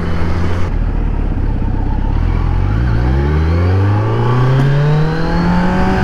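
Kawasaki Z900's inline-four engine running at a steady pitch, then revving up with a smoothly rising pitch over the second half as the motorcycle accelerates.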